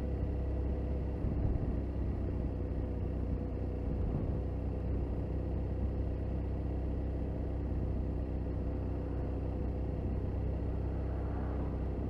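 Motorcycle engine running steadily while riding in slow traffic, under a steady low rumble of wind and road noise.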